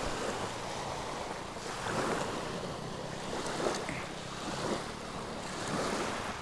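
Small sea waves breaking and washing up the shore in repeated swells, with wind buffeting the microphone.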